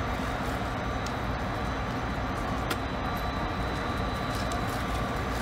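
Diesel locomotives idling steadily: a Clinchfield F-unit and the units coupled behind it, standing still with a low, even rumble.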